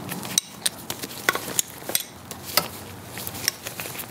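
Steel wrenches, a combination wrench and a crowfoot flare nut wrench, clinking and tapping against each other as they are handled: scattered sharp, light metallic clicks.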